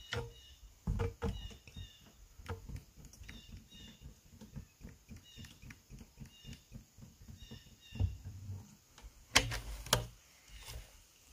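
Plastic oil containers knocking and bumping while hydraulic oil is poured from a larger can into a black plastic jug. A small bird chirps over and over in the background. Two sharp clacks come near the end.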